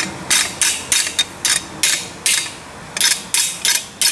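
Hand hammer striking a steel frame patch plate on a Peter Wright anvil: sharp metal-on-metal blows at about three a second, each ringing briefly, as the bend is worked into the plate.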